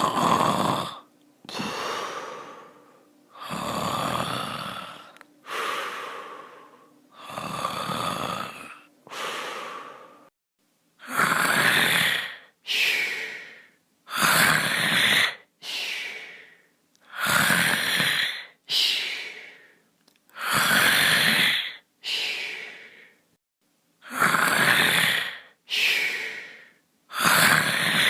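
Snoring: noisy breaths in and out, each long sound followed by a shorter one, repeating every three seconds or so and louder in the second half.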